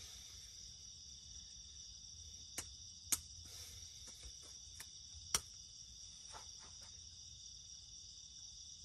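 Crickets and other night insects chirring steadily in a high continuous drone. A few sharp clicks stand out above it, the loudest about three seconds and five seconds in.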